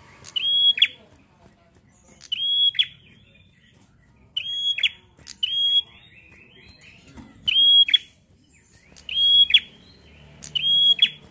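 A caged prenjak songbird calling loudly over and over, about seven times, roughly one call every second or so. Each call is a short, high, held note that drops sharply at its end. A softer chattering trill comes between calls about halfway through.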